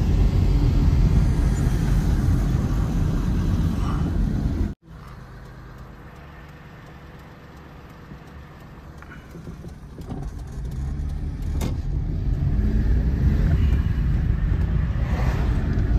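Car driving, heard from inside the cabin: steady low road and engine rumble. About five seconds in it cuts off abruptly to a much quieter hum, which builds back up to the full rumble over the next several seconds.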